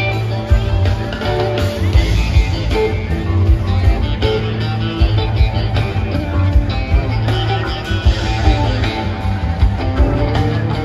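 Live rock band playing an instrumental passage, electric guitar to the fore over bass and a steady drum beat.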